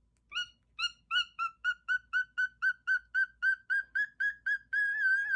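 Pet parrot whistling a quick run of short, clear notes, about four a second, slowly rising in pitch and ending in one longer wavering whistle.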